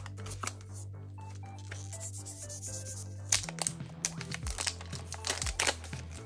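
Clear plastic protective sleeve on a new phone crinkling as it is handled, with sharper crackles in the second half. Background music with a held bass note plays underneath.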